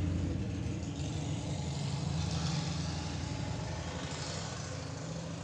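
A steady low hum with a faint hiss above it, slowly fading.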